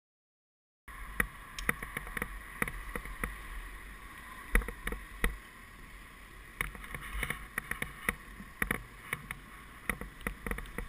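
Riding noise picked up by a camera on a moving bicycle: a low wind rumble with frequent sharp rattles and knocks as the bike goes over the path surface. It starts suddenly about a second in, after silence.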